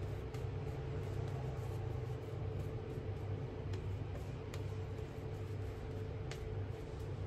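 A shaving brush faintly swishing lather onto the face over a steady low background hum, with a few faint clicks in the second half.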